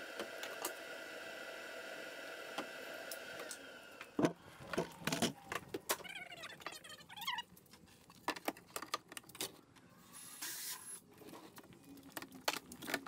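A steady machine whine that winds down and stops a few seconds in, then knocks, clicks and clatter of wood and tool handling at a DeWalt compound miter saw. Near the end the saw's motor starts to spin up.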